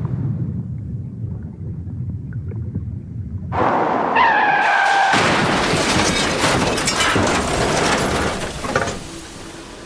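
A low rumble, then about three and a half seconds in car tyres screech with a high, slightly falling squeal. A long, loud crash of crunching metal and breaking glass follows and runs on for several seconds before dying away near the end.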